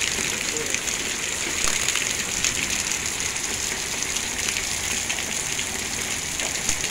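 Hail mixed with rain falling steadily, with the dense small ticks of hailstones striking the patio and its furniture.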